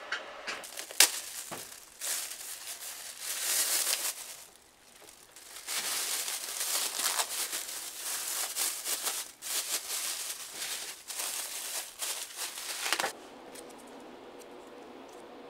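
Clear plastic bag crinkling as a lump of dough is squeezed and kneaded inside it, in irregular rustling bursts that stop suddenly about two seconds before the end.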